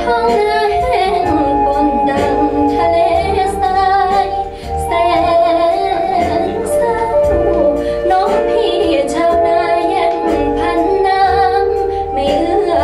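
A Thai ballad with a female voice singing long, wavering held notes over a band accompaniment. It is a freshly made studio recording played back loud over Gauder Akustik Berlina RC-11 hi-end loudspeakers in a listening room.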